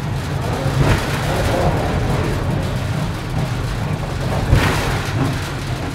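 1900-built funicular car running down its rails: a steady low rumble with a sharp knock about a second in and another about a second before the end.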